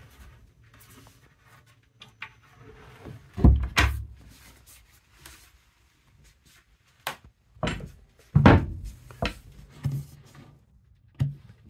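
Wooden cabin-sole hatch panels being handled, lifted and set down: a series of separate knocks and thuds. The loudest come about three and a half seconds in and about eight and a half seconds in.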